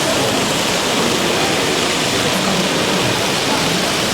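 Steady background hubbub of a crowded exhibition hall, many distant voices and movements blended into one even wash of noise.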